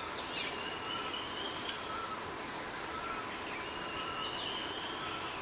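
Steady high-pitched insect drone with several faint, distant bird whistles scattered through it.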